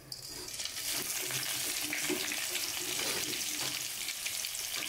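Whole spices (cinnamon stick, fennel, cumin and black peppercorns) tipped into hot oil in a kadai, sizzling and crackling. The hiss starts suddenly as they hit the oil and then holds steady: spices being tempered in oil.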